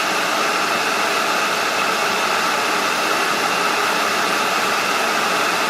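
Kettle heating water: a steady, even rushing hiss with no whistle.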